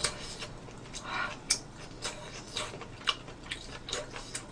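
Quiet eating sounds: chopsticks clicking against a metal pan as a piece of spicy squid stir-fry is picked up, with small mouth and chewing noises. One sharper click comes about one and a half seconds in.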